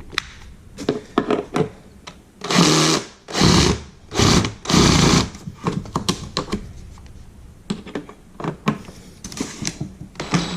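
Cordless drill/driver running in three short bursts about three to five seconds in, backing out the screws that hold a fish mount to its cardboard packing, with light clicks and rustling of handling between the bursts.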